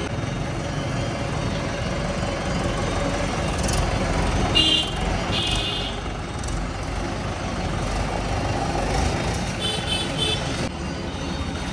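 Tractor engine running with a steady low rumble. Short high-pitched toots break in twice around the middle and again near the end.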